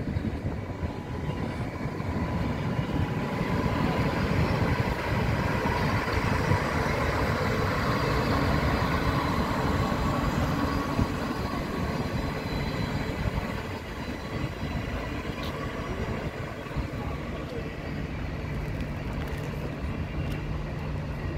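Passenger train coaches rolling past on the rails: a steady rumble of wheels on track, a little quieter in the second half.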